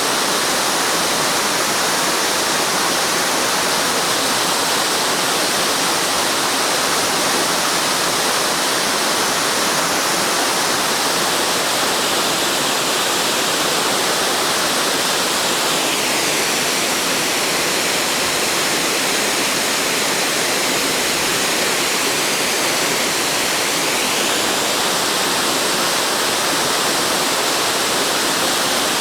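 Waterfall: the loud, steady rush of falling water. The higher hiss shifts in tone for several seconds midway, then returns.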